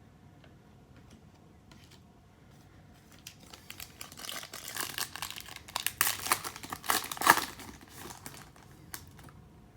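Plastic trading-card pack wrapper crinkling and being torn open by hand. The crackling starts about three seconds in, is loudest in the middle and stops near the end.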